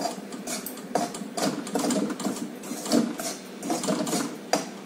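Spatula scraping and stirring wheat flour as it dry-roasts in an iron kadhai, in quick repeated strokes about two to three a second. The flour is nearly roasted to a light brown.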